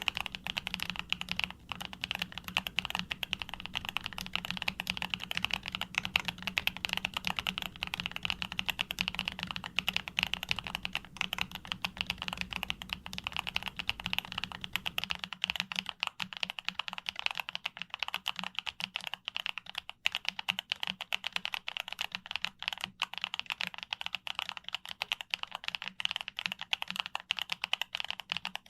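Continuous fast typing on a YUNZII B75 Pro mechanical keyboard, a dense run of keystroke clacks. About halfway through, the deeper low thump drops out and the keystrokes sound thinner and clickier.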